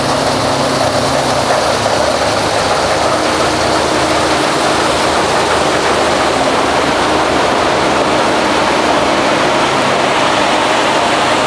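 Harvest machinery at work in a wheat field: a heavy diesel engine running steadily under a dense, unbroken rushing noise.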